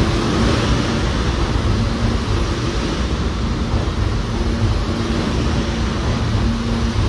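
Alstom-built R160 subway train moving along the platform of an underground station: a loud, steady rumble of its wheels on the rails, with faint steady tones under it.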